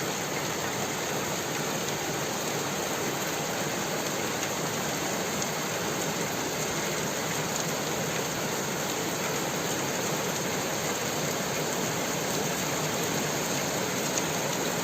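Rain falling steadily in a dense, even hiss of drops striking surfaces.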